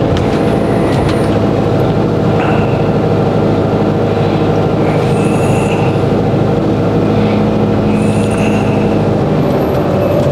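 Motorhome engine running steadily at low speed, heard from inside the cab as it creeps along.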